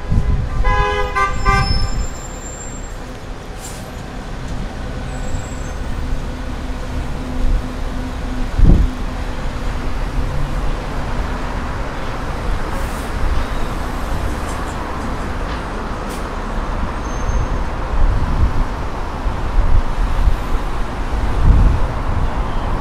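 City street traffic: a car horn honks in a few short beeps in the first two seconds, then the steady noise of passing cars, with a sharp thump about nine seconds in.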